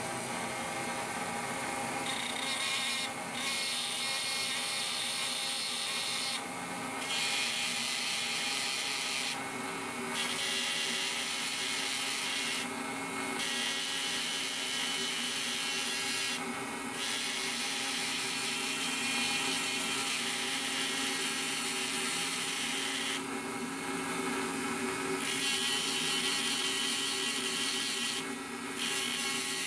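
HILDA JD3321C rotary tool running steadily with an engraving bit, a steady motor whine under a scratchy grinding as the bit cuts. The grinding drops away briefly several times.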